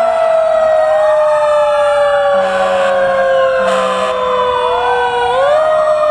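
Several fire truck sirens wailing together. One siren's pitch falls slowly for about five seconds, then climbs sharply again, while others rise and fall above it. Two short horn blasts come about two and a half and three and a half seconds in.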